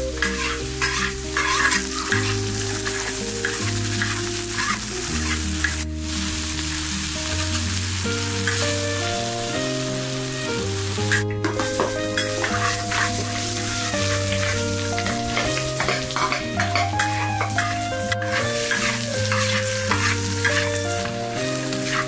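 Sliced potatoes and green peppers sizzling in a hot wok, stirred and tossed with a metal spatula that scrapes the pan again and again. A background music track plays steadily underneath.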